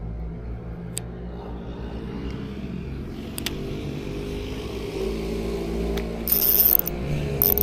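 A motor vehicle engine running steadily, with a few sharp clicks and a short loud hiss about six seconds in.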